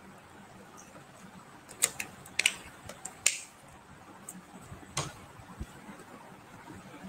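A handful of sharp clicks and short crackles over faint room hiss, bunched between about two and three and a half seconds in, with one more near five seconds.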